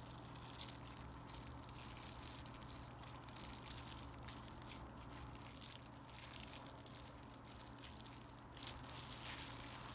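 Faint crinkling and rustling of a plastic bag being pressed and kneaded around a hand coated in paraffin wax, over a low steady hum.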